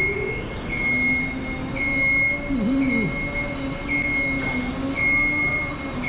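Work lift's motion alarm beeping about once a second, over the steady whine of its electric drive motor as the lift moves.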